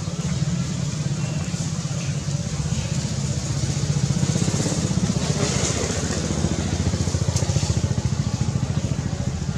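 An engine running steadily, with a low, fast, even pulse.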